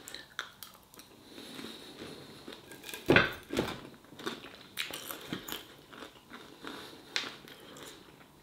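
A man chewing a mouthful of chips and curry, with soft mouth noises and a few sharper clicks, the loudest about three seconds in.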